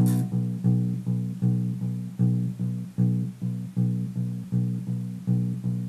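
Electric bass guitar playing a steady run of repeated eighth notes on B, the second fret of the A string, about two and a half plucks a second for two bars. Each note is cut short before the next.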